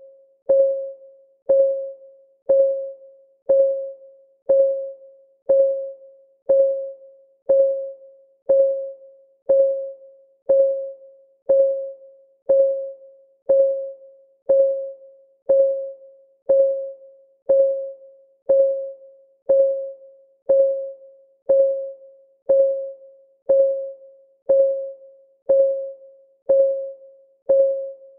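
Ticking-clock sound effect: one short tick a second, each a sharp click with a brief mid-pitched ring that fades, keeping perfectly even time.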